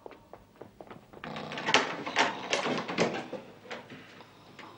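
Hurried footsteps going up a stairwell: a run of irregular knocks and scuffs, sparse at first and thicker from about a second in.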